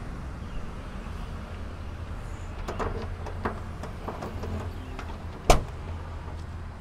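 Key working the lock of a Maruti Suzuki Omni van's rear hatch: a few small metallic clicks, then one sharp latch clack about five and a half seconds in as the hatch is released, over a steady low hum.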